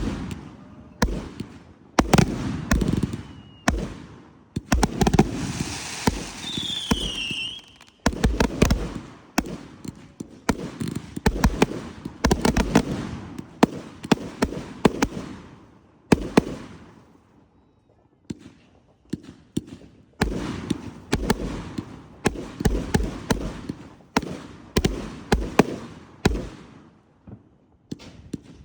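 Fireworks display: a rapid run of booms and sharp bangs with crackling between them. A short falling whistle comes about six seconds in, and the barrage briefly thins out past the middle before picking up again.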